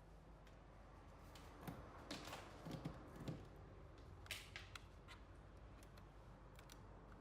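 Near silence with faint clicks and knocks of small objects being handled, clustered about two seconds in and again past the middle.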